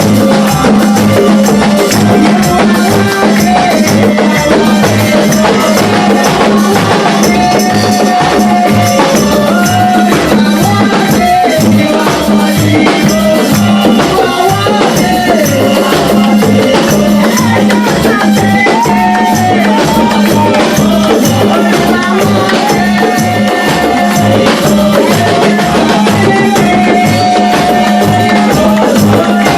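Loud, steady church worship music: a band with an evenly pulsing low beat, rattling percussion and a wavering melody line over it.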